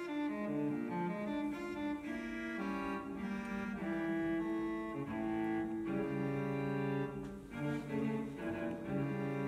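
Solo cello music: a melody of bowed notes, each held for about half a second to a second.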